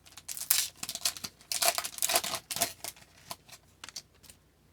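A foil hockey card pack being torn open and crinkled: a rapid run of crisp crackles and rips that thins out after about three seconds.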